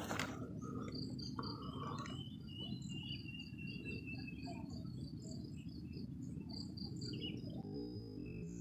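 Insects chirping, a short high chirp repeated several times a second, with a longer thin note a couple of seconds in, over a steady low background rumble. Music comes in softly near the end.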